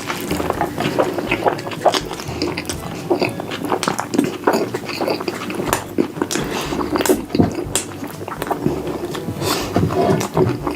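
Close-miked mukbang eating sounds: loud chewing, smacking and slurping of food, a dense run of wet clicks and smacks.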